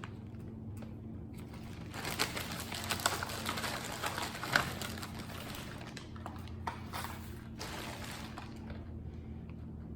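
Pump soap dispenser being pressed several times, squirting soap into the baking-soda mixture, with soft clicks and squishy squirts, busiest in the first half.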